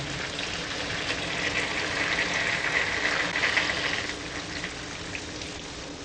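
Rushing water: a steady hiss that swells in the middle and then fades away near the end.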